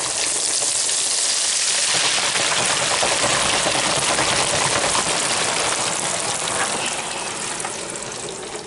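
Hot oil in an electric deep fryer sizzling and bubbling hard just after a basket of breaded fish, potatoes and green tomatoes has been lowered in. The sizzle eases a little near the end.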